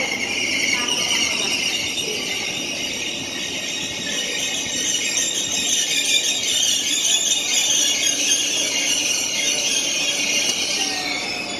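SRT high-speed train slowing into a station platform, its brakes and wheels giving a steady, high-pitched squeal of several tones together over a low running rumble.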